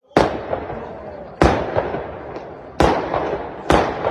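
Fireworks bursting: four loud booms a little over a second apart, each followed by a fading rumble.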